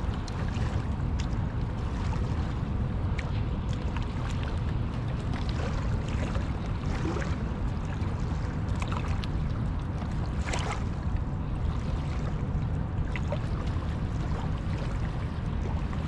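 Steady low rumble of wind and water, with scattered small clicks and knocks and one sharper tick about ten and a half seconds in.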